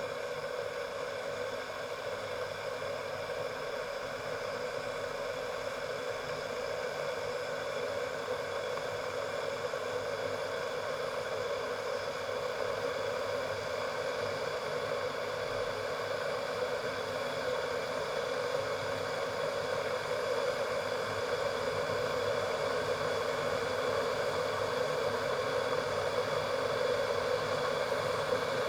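Electric ceramic kettle heating water toward the boil: a steady rushing hiss that slowly grows louder.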